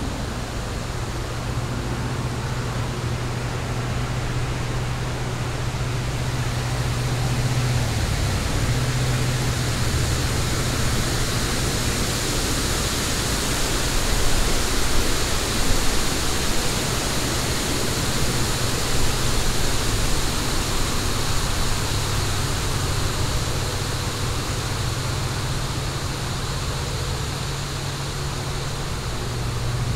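Fire burning in a fire pit: a steady rushing hiss with a low hum underneath, swelling slightly about halfway through.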